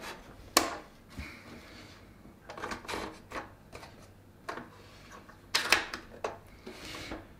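Scattered plastic clicks and knocks from handling an Epson EH-TW5400 projector: its front height-adjustable foot and release lever are worked and the plastic body is turned on the desk. A few separate clicks come about half a second in, around three seconds in, and in a cluster near the end.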